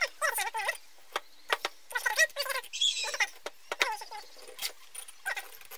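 Steel scriber scratching lines onto rusty square steel tube: a run of short squeaks and scrapes.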